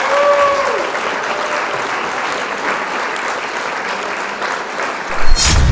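Audience applauding, a steady patter of many hands clapping. Near the end a single loud thump stands out above the clapping.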